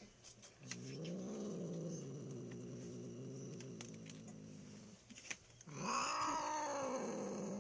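Domestic cat growling: a long, low growl that rises and falls in pitch, then swells into a louder, higher yowl near the end.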